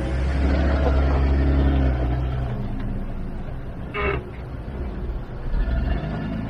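Off-road 4x4 engine revving under load on a wet, muddy climb, loudest in the first couple of seconds. A short horn toot comes about four seconds in.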